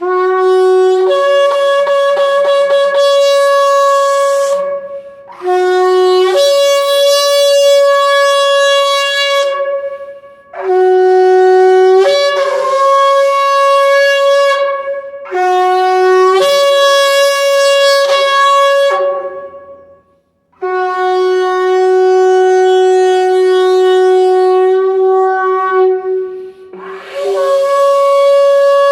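Kudu-horn shofar played as a melody in six long blasts with short breaks for breath. Most blasts start on a lower note and jump up to a higher one, and the fifth, near the end, holds the low note for about six seconds.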